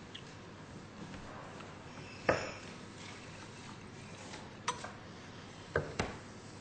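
A few short knocks and clinks of glassware being handled on a table, over low room noise. The loudest comes about two seconds in, and smaller ones follow near the end.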